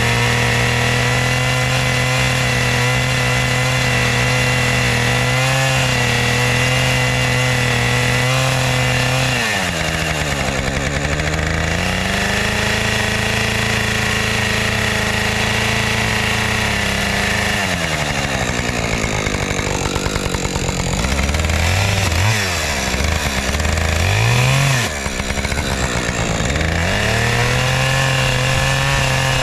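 Two-stroke Husqvarna chainsaw running at high revs while cutting, its pitch sagging and recovering about ten seconds in. About two-thirds of the way through it drops lower, is blipped up and down twice, then climbs back to full revs near the end.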